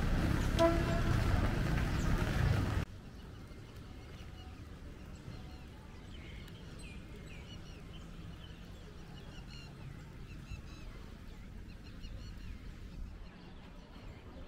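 Loud low noise with a brief pitched tone near the start cuts off suddenly about three seconds in. After that comes a quieter low outdoor background with birds chirping.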